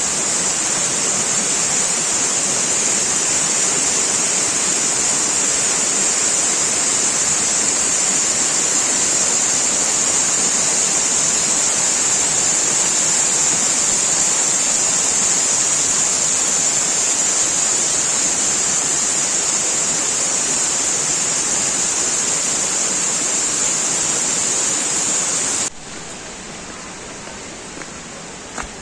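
Waterfall rushing steadily and loudly, with its falling water close by; the rush drops suddenly to a quieter level near the end.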